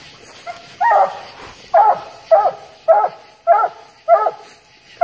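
English coonhound barking at the tree, a steady series of short barks a little under two a second: her tree bark, the sign that she has treed a raccoon.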